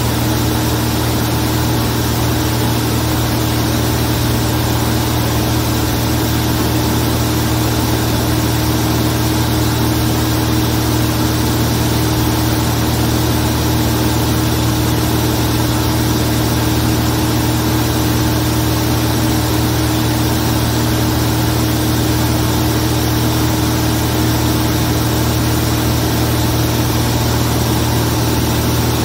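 Zlín Z-42 light aircraft's piston engine and propeller running at a steady, unchanging speed: a constant drone with a strong low hum.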